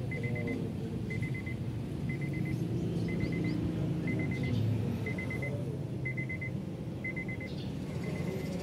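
Honda Accord's warning chime beeping in short bursts of quick pulses, repeating about once a second, over the steady low rumble of the car at idle.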